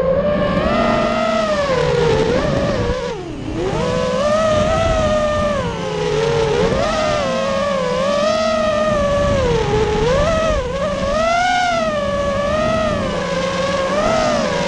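FPV quadcopter's motors whining, the pitch swooping up and down with the throttle. The pitch drops sharply about three seconds in, then climbs again.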